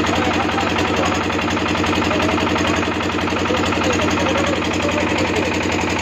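A combustion engine running steadily at an even pace, a continuous low throb that neither rises nor falls, with faint voices over it.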